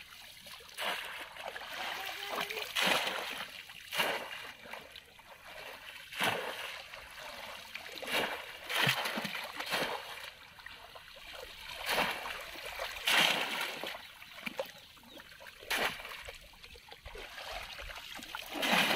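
Shallow muddy water splashing and sloshing in irregular bursts every second or two as hands grope through it and a bamboo polo fish trap is worked in the water; near the end water pours off the lifted trap.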